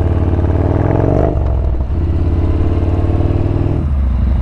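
Yamaha Bolt's air-cooled V-twin engine under way. It pulls with rising pitch for about a second, dips briefly, runs steadily, then drops lower near the end.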